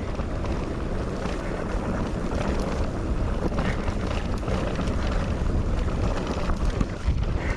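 Wind buffeting the microphone with the steady rumble and rattle of an electric mountain bike rolling over a dirt trail.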